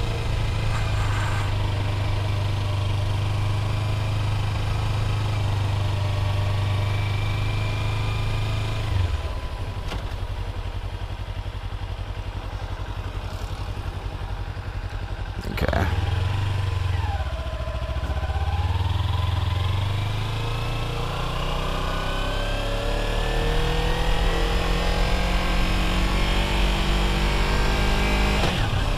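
Sport motorcycle engine running as it is ridden slowly. A steady low drone drops away about nine seconds in, a single sharp knock comes around the middle, and in the last third the revs rise again and again as it picks up speed.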